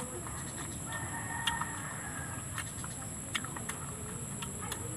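A rooster crowing in the background: one drawn-out call starting about a second in, over scattered sharp clicks and smacks of eating with the hands close to the microphone.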